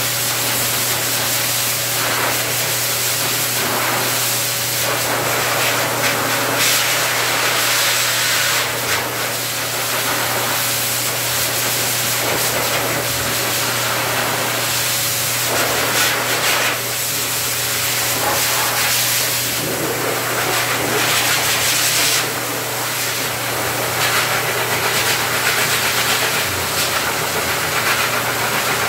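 Dog-grooming blower dryer running: a steady rush of air from the hose nozzle over a constant low motor hum. The air noise swells and dips a little as the nozzle moves through the dog's coat.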